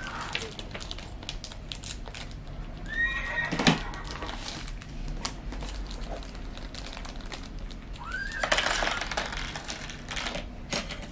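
Rustling of a clear plastic parts bag and light clicks of small plastic toy pieces being handled, with two brief high-pitched calls, one about three seconds in and one about eight seconds in.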